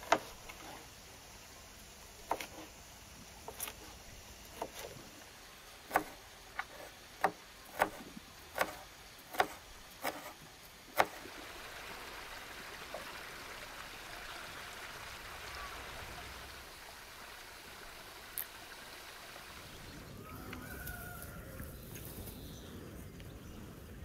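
A kitchen knife chopping green peppers on a wooden cutting board: about a dozen sharp knocks, falling into an even beat of a little under one knock a second before stopping about 11 seconds in. After that, a steady outdoor hiss, with a few faint chirps near the end.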